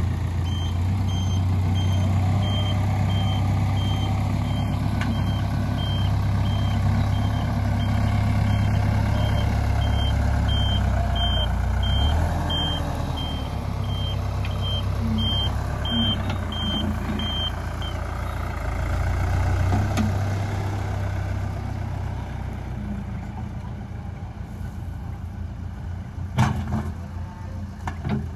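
A heavy vehicle's engine running steadily while its reverse-warning alarm beeps at about two beeps a second, the beeping stopping about two-thirds of the way through. The engine sound eases off somewhat over the last few seconds.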